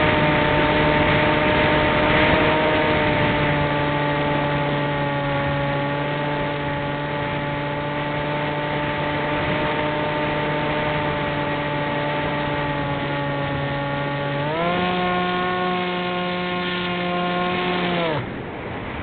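RC model airplane's motor and propeller heard from the plane's onboard camera, running at a steady pitch with wind rushing over the microphone. About fourteen seconds in, the pitch rises sharply and holds; near the end the motor cuts off suddenly, leaving only wind noise.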